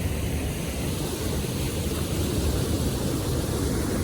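Wind buffeting the microphone outdoors: a steady, unbroken low rumble with a fainter hiss above it.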